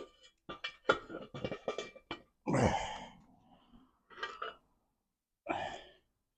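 Steel transmission parts clinking and knocking as a gear is worked off the main shaft of a manual gearbox, a quick run of sharp metallic clinks, then a louder, longer sound about two and a half seconds in that falls in pitch, and two shorter bursts near the end.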